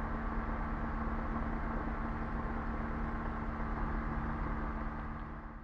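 Rotax 503 two-stroke twin of a Quad City Challenger II ultralight idling steadily on the ground, fading out near the end.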